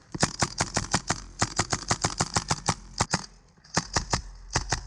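Airsoft guns firing in rapid runs of sharp snapping shots, about eight a second, with a brief pause a little after three seconds in.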